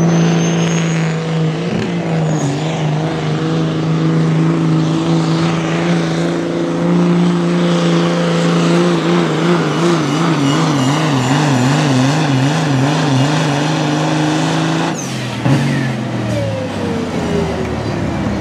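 Pro Stock semi truck's diesel engine at full throttle, pulling the sled on a steady, loud note. From about halfway through, its pitch wavers rapidly up and down, about three times a second. A few seconds before the end, the engine drops off abruptly as the throttle comes off, and a whine falls away as it winds down.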